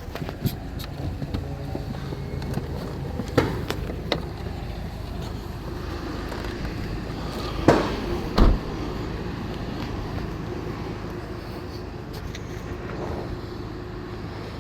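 A vehicle engine running with a steady low hum, broken by a few sharp knocks and then two louder metallic thumps close together about eight seconds in.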